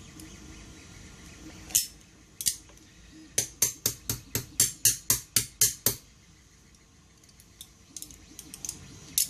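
Sharp metallic clicks of hand tools working on a small engine's carburetor linkage: two single clicks, then a quick run of about a dozen at roughly four or five a second, then a few lighter ticks and one last sharp click near the end.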